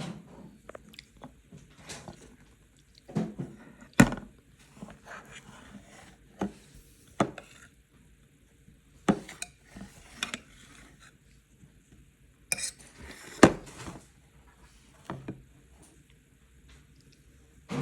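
Cutlery clinking and tapping against a plate, in scattered sharp knocks a second or more apart, with two louder knocks about four seconds in and near the end.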